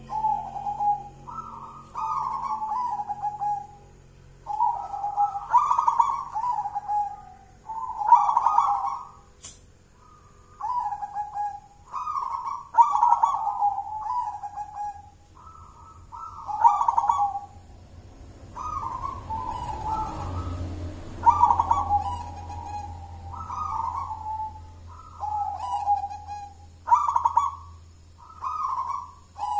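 Zebra dove (perkutut) singing its cooing song. Each phrase starts on a higher note and steps down to lower rolling coos, and the phrases repeat every couple of seconds.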